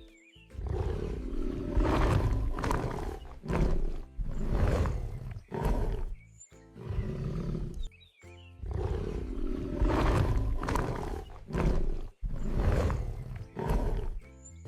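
Recorded tiger roars: several deep roars, the same run of roars repeating about halfway through, over background music.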